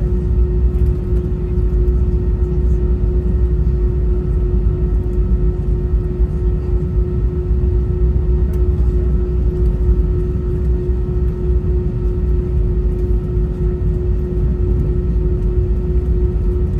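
Steady cabin noise inside an Airbus A320: a deep, even rumble from the jet engines and airflow, with a constant hum running through it.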